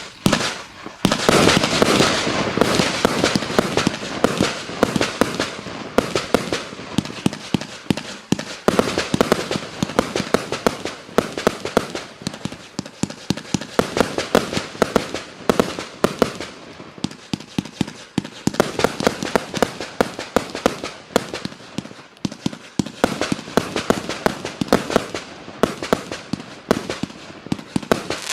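A 100-shot firework cake with 20 mm (0.8-inch) tubes firing: rapid shots and bangs, several a second, coming in waves that swell and ease.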